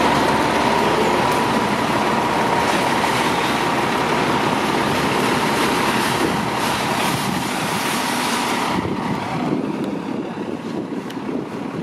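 Elevated subway train running loudly past on the steel el structure, with a steady whine over its rumble. It dies away suddenly about nine seconds in.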